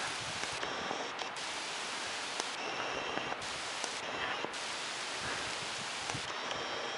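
Steady hiss of bicycle tyres rolling on wet asphalt, with a few faint clicks.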